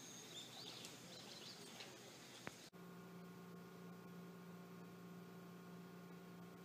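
Near silence. Faint outdoor background with a few soft bird chirps and a single click, then after a cut about a third of the way in, a steady low electrical hum of room tone.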